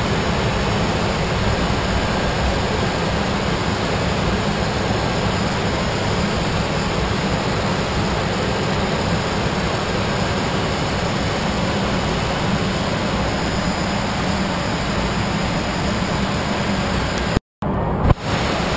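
Steady rushing cockpit noise of a private jet in flight: airflow and engine hum. It cuts out for a moment near the end.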